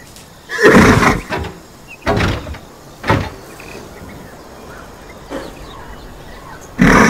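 Zebra calling: a few short, harsh calls, the loudest about a second in and another near the end.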